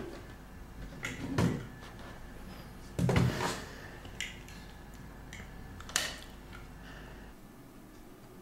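A handful of separate knocks and clicks of small objects being handled, the loudest about three seconds in and a sharp click about six seconds in.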